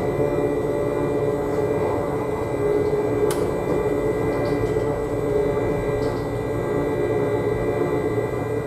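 Running sound inside a Siemens VAL 208 rubber-tyred automated light-rail car moving slowly: a steady hum with several steady high whining tones over a low rumble. A short sharp click about three seconds in.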